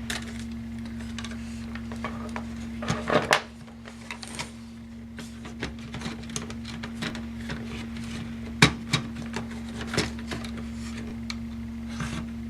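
Scattered clicks, taps and knocks of a laptop's plastic and metal parts being handled as its remaining connectors are unplugged and the motherboard is worked loose, over a steady hum. The loudest are a short cluster about three seconds in and a sharp click a little past the middle.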